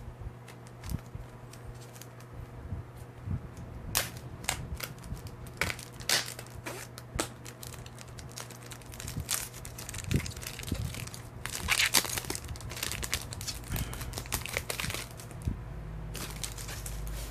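Trading-card pack wrapper crinkling and tearing open, with crackles as it is handled, denser in two spells through the middle. A steady low hum runs underneath.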